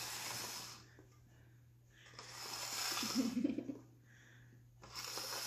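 A person breathing audibly close to the microphone: three long breaths, roughly two and a half seconds apart.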